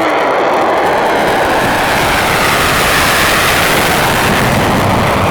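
Fighter jet engine noise as the jet makes a low pass: a loud, steady roar from deep rumble to high hiss.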